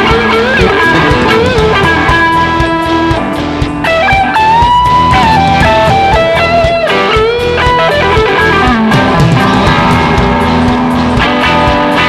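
Live rock band playing an instrumental passage: several electric guitars over bass and drums, a lead guitar holding sustained notes and bending them in pitch.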